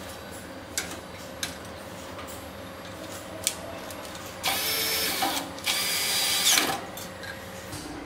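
Cordless drill driving screws into the sheet-metal locker: two runs of the motor, each about a second long, a little past halfway, as the pair of screws for a lock hook go in. Light clicks and knocks of handling come before them.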